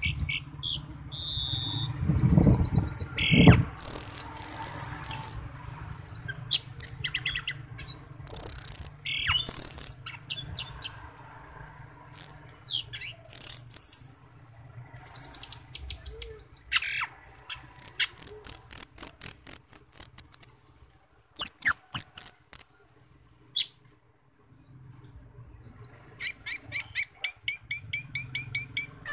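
Asian glossy starling (cucak keling) singing: loud, high-pitched phrases of whistles, fast trills and rapid chattering series of repeated notes, broken by a short pause a few seconds before the end.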